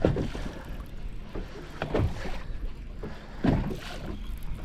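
Fishing boat on the water: wind rumbling on the microphone, with a few dull knocks on the boat.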